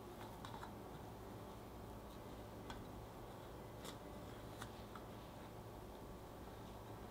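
Faint handling sounds of crepe cakes being lifted out of a metal muffin tin and set down on a plastic cutting board: a few soft, scattered clicks and taps over a steady low hum.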